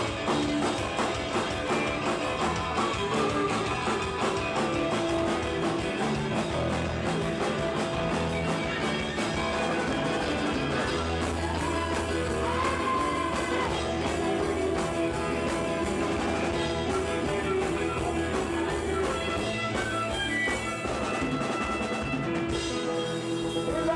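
Rock music with electric guitar and drum kit playing continuously at a steady level.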